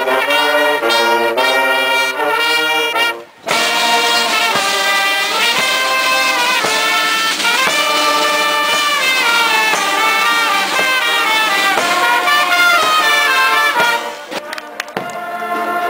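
Marching brass band of trumpets, horns and snare drums playing a tune, with a short break a little over three seconds in, then dropping to a lower level near the end.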